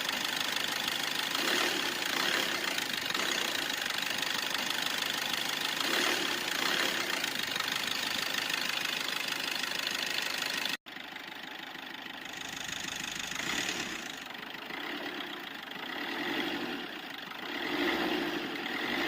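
Car engine running, steady and loud at first; about eleven seconds in it cuts abruptly to a quieter engine sound that rises and falls in several swells.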